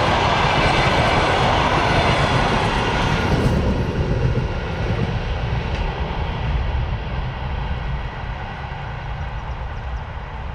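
Passenger coaches of a long-distance train running past close by, a loud rush of wheels on rail. The last coach clears about three and a half seconds in, and the sound then falls away as the train recedes.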